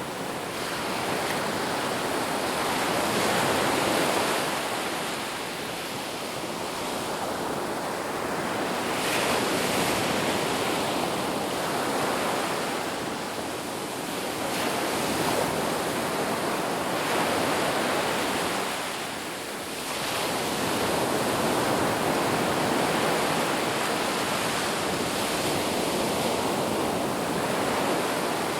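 Sea waves breaking and washing on the shore: a continuous hiss of surf that swells and falls back every few seconds.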